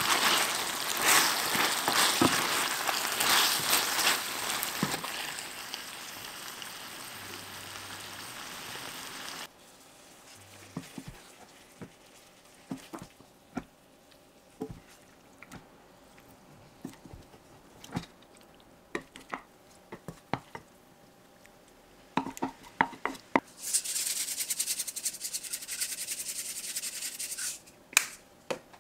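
Spicy red sauce bubbling and sizzling in a steel pan as it is stirred, with many small pops and clicks; this cuts off suddenly about a third of the way in. Then come scattered soft clicks and wet squishes as a wooden spoon lifts the sauced rice balls onto a plate, and a few seconds of hissing again near the end.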